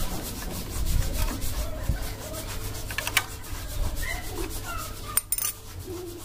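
A long screwdriver scraping and rubbing as it is worked out of the carburetor's adjusting screw through the side cover of a TVS XL Super moped, with irregular scrapes and clicks over a low steady hum.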